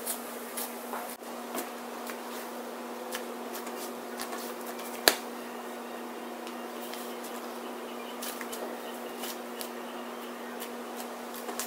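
White slime being pressed, folded and flattened by hand on a stone countertop, giving scattered small sticky clicks and pops, with one sharper pop about five seconds in. A steady low hum runs underneath.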